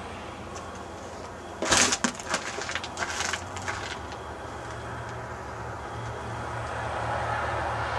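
About two seconds of sharp crackling and snapping of ice crust, sleet-glazed surfaces being broken or crunched, over a steady low hum. A soft hiss builds slowly afterwards.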